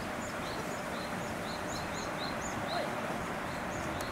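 A small songbird chirping: a quick run of short, high, arched notes, three or four a second, over a steady outdoor hiss.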